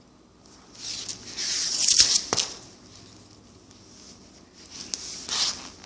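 Fishing reel being cranked to wind monofilament line onto its spool: a hissing whir in two spells, about a second in and near the end, with a couple of sharp clicks at the end of the first spell.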